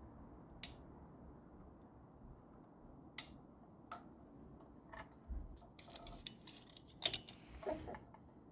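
Hands working with the sensor wiring on an exercise bike: scattered light clicks and ticks, with a quicker cluster of clicks and rattles in the last couple of seconds.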